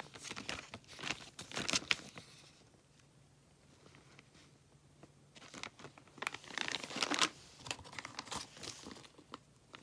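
Clear plastic parts bags crinkling as they are handled. It comes in two bursts, over about the first two seconds and again from about halfway, with a few small clicks near the end.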